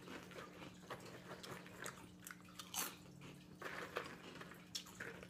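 Scattered sharp crunches of Hot Cheetos and Takis being chewed and picked through by hand in a plastic bowl.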